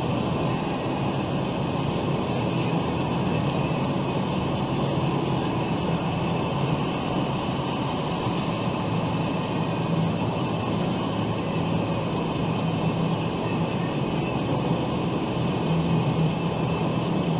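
Car driving at speed on a multi-lane road, heard from inside the cabin: steady tyre and road noise with a low engine hum.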